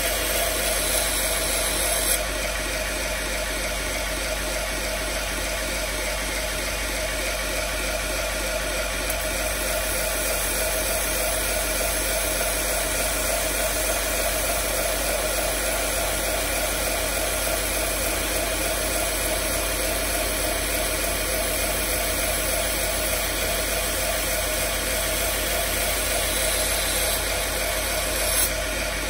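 Belt grinder running steadily with a 120-grit belt, a constant motor and belt hum and hiss, with a slight change in the sound about two seconds in and again near the end.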